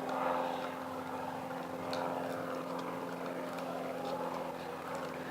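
Steady low mechanical hum with a few faint clicks over it.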